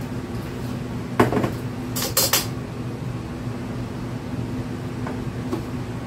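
A metal kitchen utensil and a glass bowl knocking and clinking: one knock about a second in, a quick run of bright clinks a second later, and two light taps near the end, over a steady low hum.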